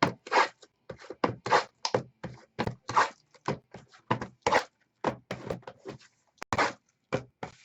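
An irregular run of short taps and rustles, about three or four a second, as things are handled on a tabletop during a trading-card break.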